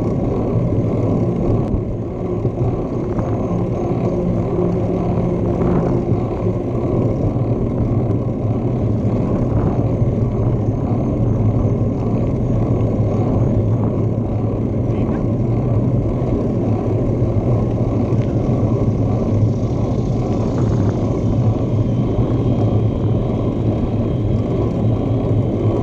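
Steady, loud wind rumble buffeting the microphone of a handlebar-mounted GoPro while riding a bicycle.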